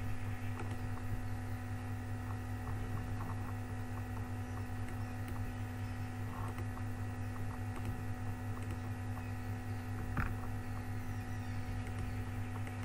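Steady electrical mains hum on the recording, with a few faint mouse clicks, the clearest about ten seconds in.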